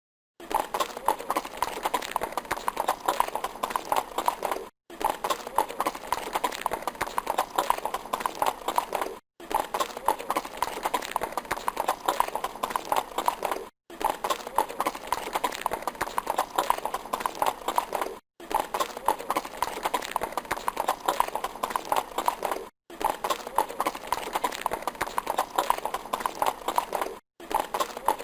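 Horse's hooves running, a fast continuous clip-clop of hoofbeats. A roughly four-and-a-half-second stretch repeats over and over, with a brief silent break between repeats.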